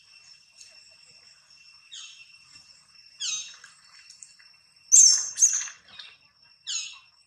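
About six short, high squawking animal calls, each sweeping down in pitch; the loudest two come close together about five seconds in. A steady high insect drone runs underneath.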